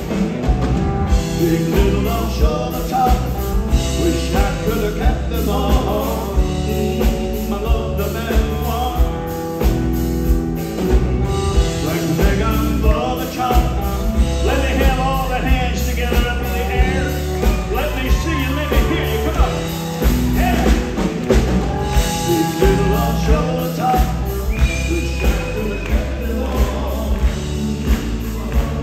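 Live country band playing a song with a steady drumbeat, with pedal steel guitar and electric guitar on the stage.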